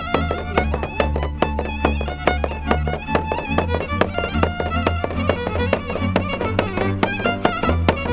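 Romanian folk music: a fiddle plays a lively tune over a steady low bass line, with drum strokes keeping a regular beat.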